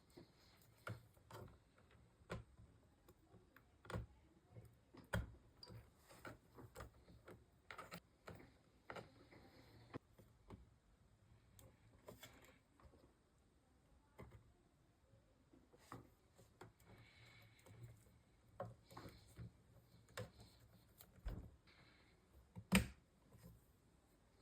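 Faint, irregular clicks and taps of small computer parts and tools being handled during PC assembly, with one louder tap near the end.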